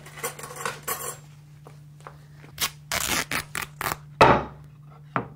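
Scissors snipping through a parcel's linen wrapping: a quick run of short snips and rustles about halfway through, then one louder sound a second later.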